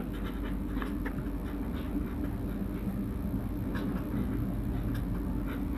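Steady low background rumble and hum, with a few faint scratches of a marker pen writing on paper.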